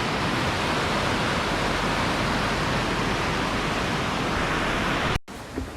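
Waterfall, with a steady rush of falling water close by, cut off suddenly about five seconds in. A quieter rustle of wind on the microphone follows.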